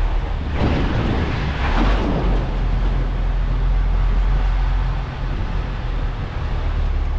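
Articulated truck's diesel engine running at low revs as the lorry creeps forward, a steady low hum. About a second in, a louder rush of noise rises over it for a second or two.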